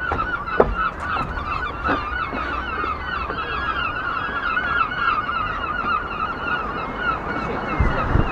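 Many seagulls calling at once, a dense chorus of short overlapping cries. A few light taps sound in the first two seconds, and wind buffets the microphone near the end.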